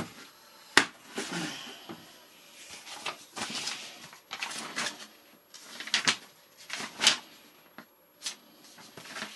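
Hands handling small plastic boxes and tubs on a workbench: a few sharp clicks and knocks with soft rustling between, and paper instruction sheets rustling near the end.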